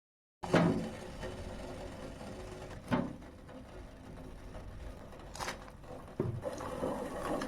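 A few separate knocks over a steady hiss, starting after a moment of silence.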